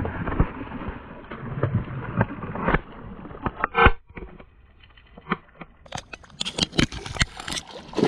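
Knocking and scraping of handling noise in a small fishing boat, with a sharp knock a little before halfway and a quick run of clicks near the end.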